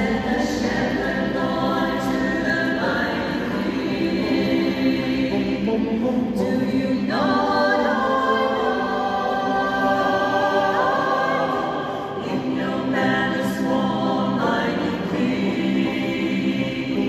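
Small mixed choir of men's and women's voices singing a cappella in held chords, moving to a new chord every few seconds.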